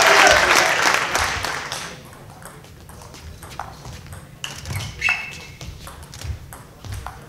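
Crowd applause in a sports hall dying away over the first two seconds, then a table tennis rally: the ball clicking sharply off bats and table, one to two hits a second.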